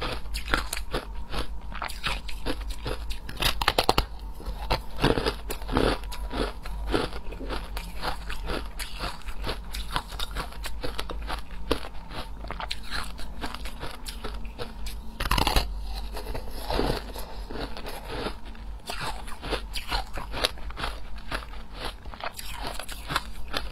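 Shaved ice being bitten and chewed, a steady run of sharp, irregular crunches.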